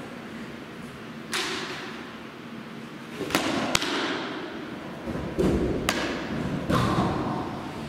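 A series of about six sharp thumps and smacks, spread irregularly over several seconds, each echoing briefly: softballs striking gloves and hard surfaces.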